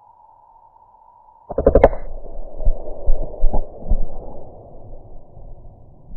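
A single .22 LR rifle shot, a 30-grain Aguila Super Maximum hollow point fired into a ball of clay, about a second and a half in: sudden, very loud and distorted. It is followed by a few seconds of rumbling with several knocks that fade before the sound cuts off.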